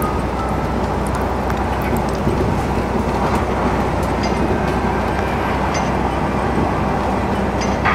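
Car driving at highway speed: steady tyre, road and engine noise heard from inside the cabin.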